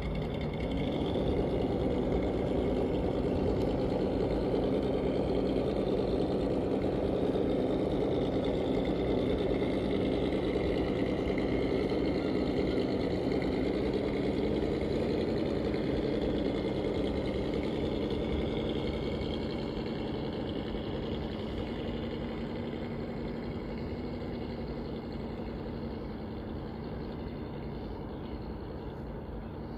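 Traxxas TRX-4 RC crawler's electric motor and gearbox whirring steadily as it drives, fading gradually over the last third as it moves away.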